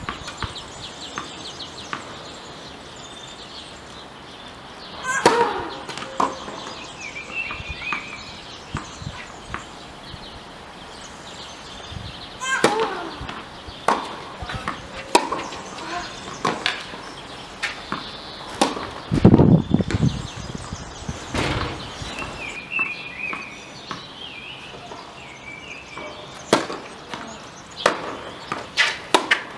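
Tennis rally on an outdoor hard court: sharp racket strikes and ball bounces at irregular intervals. A louder, dull rumble comes about two-thirds of the way through.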